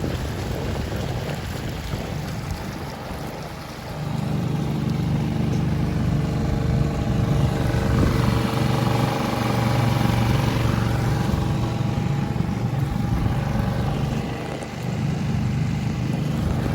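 Motorboat engine running, louder from about four seconds in.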